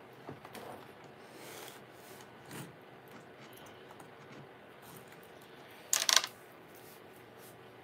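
Faint clicks and taps of a laptop keyboard and trackpad, then a short brushing noise of hands, two quick strokes, about six seconds in.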